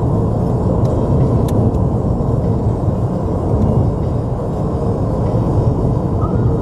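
Steady low rumble inside a car cruising at motorway speed: tyre and engine noise heard from the cabin.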